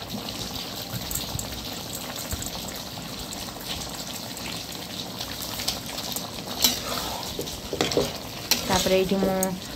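Chicken curry gravy simmering and sizzling steadily in an aluminium kadai, with a few sharp knocks of a metal spatula against the pan near the end.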